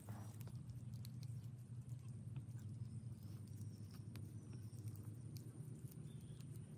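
Faint, scattered light clicks and taps of baked eggs in their shells being handled and pushed onto a thin bamboo skewer, over a steady low outdoor hum.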